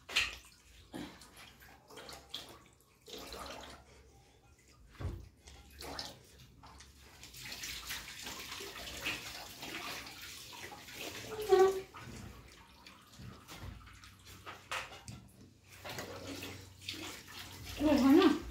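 Close-up eating sounds: wet chewing and mouth noises, and fingers mixing and scooping rice on a steel plate, with many small clicks. There is a short louder sound about eleven seconds in and another near the end.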